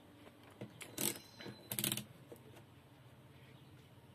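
A few short clicks and knocks, the loudest about a second in and just before two seconds in, over faint background noise.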